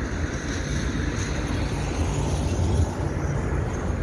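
Strong wind buffeting the phone's microphone: a steady low rumble.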